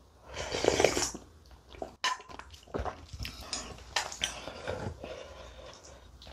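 Mouth slurping spicy ramen broth from a spoon: one loud wet slurp just under a second long, near the start. It is followed by a run of short clicks and smacking mouth sounds of eating.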